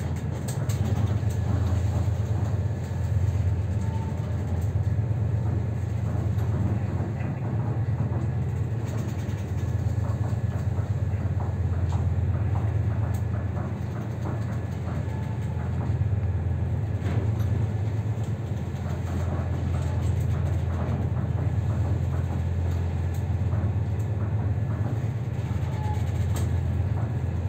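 Steady low drone of a ship's engines and machinery heard inside the wheelhouse while underway, with light rattling and clicking throughout.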